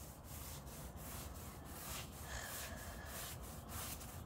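Rhythmic brushing and scraping strokes, about three a second, of someone sweeping and scrubbing a surface clean.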